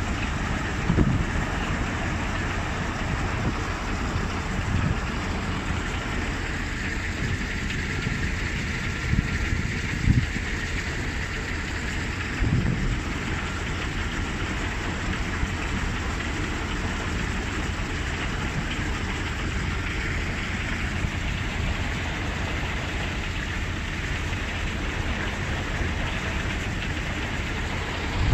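Steady running of a fire pump forcing water through a hose into an aircraft's tank, with the water rushing; a few brief low thumps stand out in the first half.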